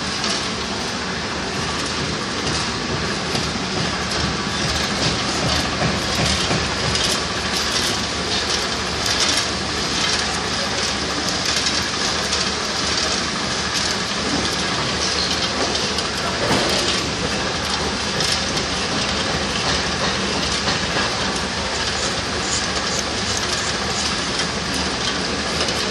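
Motor-driven oilseed-processing machine running steadily with a loud, continuous rattling clatter as material is fed into its hopper.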